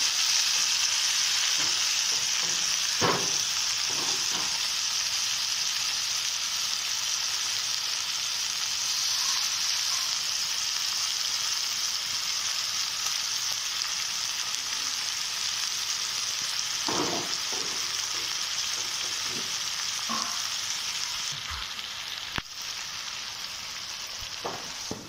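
Small fish frying in hot mustard oil in a kadhai: a steady sizzle with a few brief clicks from the pan. The sizzle softens a little near the end.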